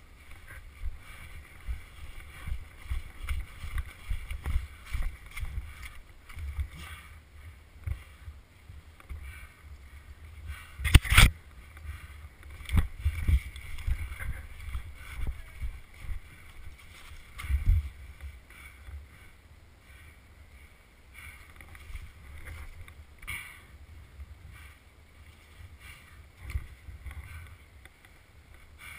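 Muffled, irregular thumps and rustling from a body-worn action camera being jostled as its wearer moves, with one sharp, loud knock about eleven seconds in.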